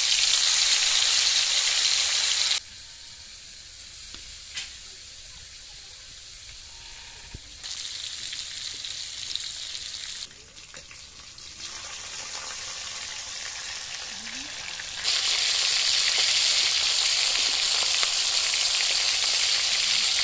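Pieces of shol (snakehead) fish sizzling as they fry in hot oil in a kadai. The sizzle steps sharply quieter and louder several times. It is loudest at the start and again over the last five seconds.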